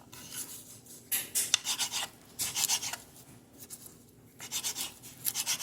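Kitchen knife chopping fresh basil and oregano leaves on a cutting board, in several short runs of quick strokes.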